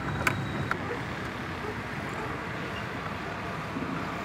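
A vehicle driving along a city street: a steady rumble of road and traffic noise, with a couple of short clicks in the first second.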